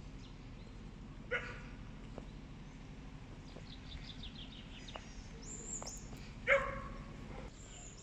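A dog barks twice, about five seconds apart, the second bark longer. Small birds chirp in quick runs between the barks, over a steady low background noise.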